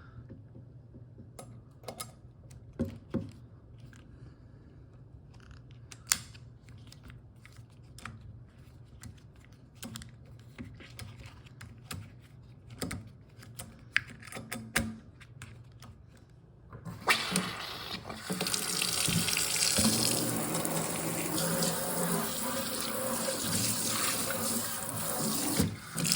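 Small clicks and knocks of faucet parts being handled, then about 17 seconds in a Kohler faucet is turned on and water runs steadily into the sink, with a brief break near the end. The faucet has a newly fitted diverter.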